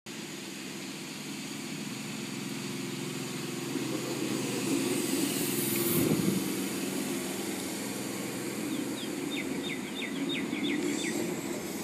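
Sydney Trains S-set double-deck electric train pulling into a platform and slowing, a steady hum and rumble that grows louder as the front draws level about halfway through. Near the end, a run of quick high chirps.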